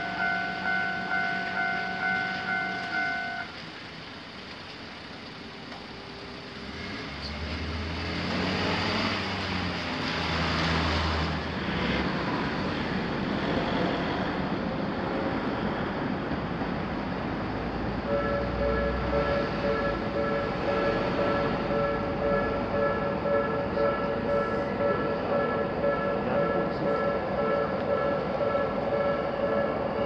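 Japanese railroad-crossing alarm bell ringing in a quick, pulsing ding-ding rhythm, about three dings a second, stopping about three seconds in. A vehicle passes during the quieter stretch that follows. About midway another crossing's alarm starts, with a lower-pitched ding, and keeps ringing.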